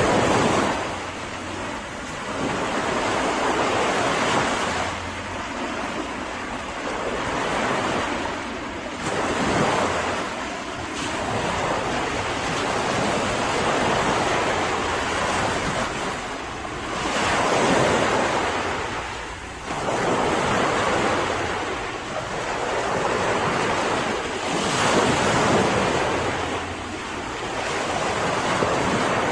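Mediterranean sea waves breaking on a beach, the surf swelling and falling back every few seconds, with wind.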